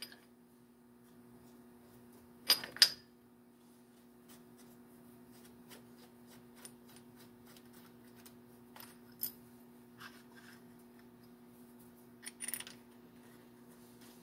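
Small steel clamp parts clinking against a milling-machine vise as they are set in place by hand: two sharp metal clinks about two and a half seconds in, a single tick later, and a short rattle near the end, over a steady low hum.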